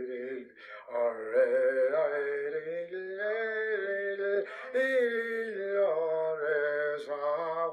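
A single voice singing unaccompanied: a slow song in long phrases of held, gently sliding notes, with brief breaths between phrases.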